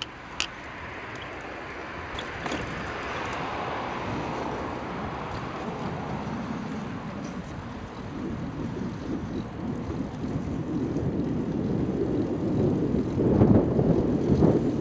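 Wind buffeting the microphone, with tyre rumble from a bicycle being ridden, growing louder toward the end. A sharp click comes just after the start.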